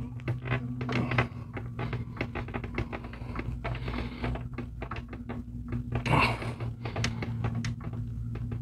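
Irregular light clicking and scraping of an RV awning gas spring strut being twisted by hand on its threaded end fitting, screwed in toward bottoming out. A steady low hum runs underneath.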